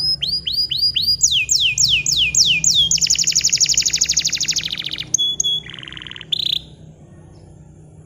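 Bottle-green canary singing one loud song phrase. It begins with a series of falling whistled sweeps, moves into a fast, even trill, and closes with a few short notes, then stops about two-thirds of the way through.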